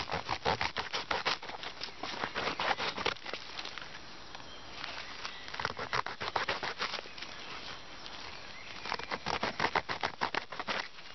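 The edge of an unsharpened plastic ice scraper sawed back and forth through a blackberry bramble stem on a tree stump: three runs of quick scraping strokes with short pauses between them.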